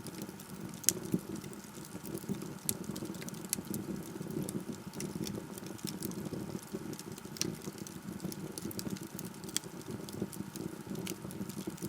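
Log fire burning in a fireplace: irregular sharp crackles and pops over a steady low hiss of the flames, with one louder pop about a second in.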